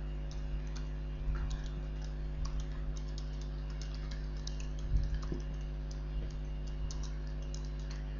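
Computer keyboard being typed on: an irregular run of quick key clicks over a steady low hum.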